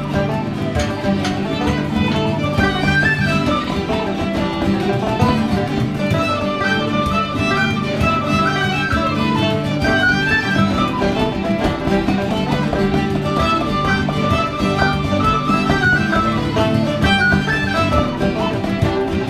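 Irish traditional session music: a banjo, acoustic guitars and bodhráns playing a fast tune together, with quick melody notes over steady strummed chords.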